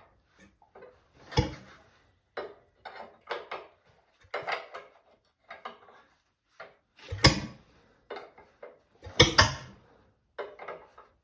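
Scattered metal clanks and knocks of hands-on work around a Ford flathead four-cylinder engine during an attempt to start it on starting fluid. Two loud, deep thumps stand out about seven and nine seconds in.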